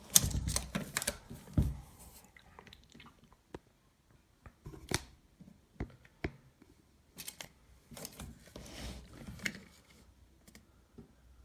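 Handling noise from a steel tape measure: scattered clicks, taps and rubbing as the tape is stretched and held against a turntable lid. The noise is busiest in the first two seconds, then single clicks follow at intervals.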